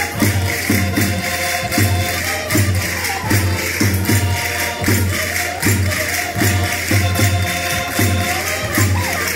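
Portuguese rusga folk music: accordion melody over a steady bass-drum beat, a little over two beats a second, with jingling tambourine-like percussion and group singing.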